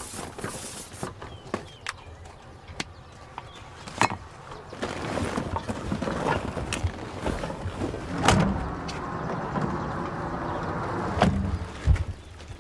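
Knocks and thumps of cargo being loaded into the back of a van, with a rustle of a large plastic sack being pushed in. A car door shuts with a bang near the end.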